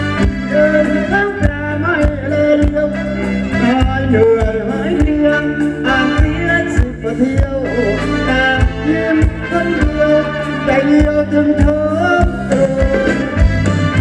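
Live Thai ramwong dance band music: a wavering melodic lead over a bass line and a steady drum beat.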